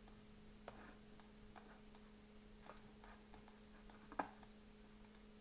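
Near silence with faint, scattered clicks from working a computer's controls, about a dozen irregular ticks with the loudest a little after four seconds in, over a low steady hum.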